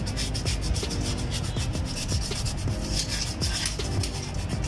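Sandpaper rubbed by hand over the metal water pump mounting face of a Mitsubishi Canter 4D32 engine block, in quick, even back-and-forth strokes. The surface is being cleaned so the new pump's O-ring seals flat.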